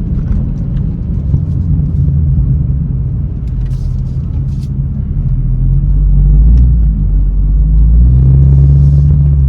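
Tuned Chevrolet Camaro SS's L99 6.2-litre V8 running with a deep, steady exhaust rumble. It swells louder about six seconds in and holds there.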